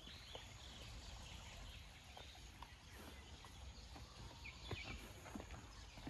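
Near silence: faint forest ambience with a few soft, scattered clicks.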